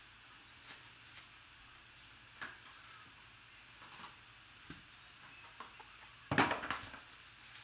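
Plastic shrink wrap crinkling and a cardboard trading-card box being opened by hand, with a few light crackles and clicks, then a louder rustle and knock about six seconds in as the foil card pack is handled and set on the table.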